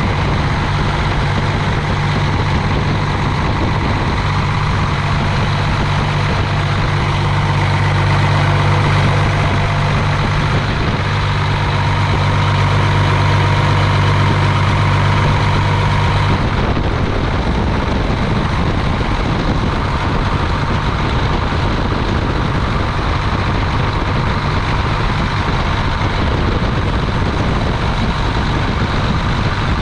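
A machine running steadily, with a strong low hum that drops away about halfway through while the steady running noise carries on.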